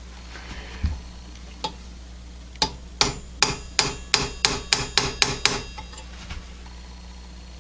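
Hammer tapping a transfer punch through the clearance holes to mark hole centres on a steel angle: two single knocks, then a quick run of about ten metallic strikes.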